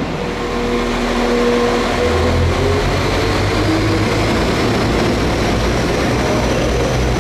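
A train's diesel engine running heavily, the low drone strengthening about two seconds in and then holding steady, with a faint high whine slowly rising in pitch above it.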